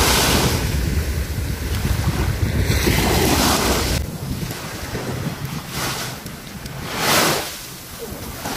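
Small sea waves washing around waders in shallow water, with wind buffeting the microphone; a louder swell of water about seven seconds in.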